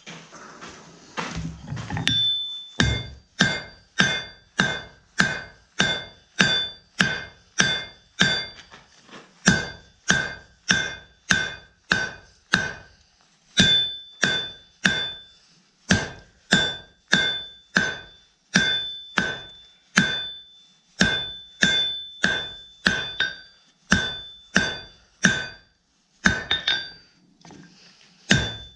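Forging hammer striking hot steel on an anvil in a steady run of blows, about two to three a second, each blow ringing, with a few short pauses. The smith is drawing half a horseshoe out into quarter-inch square stock.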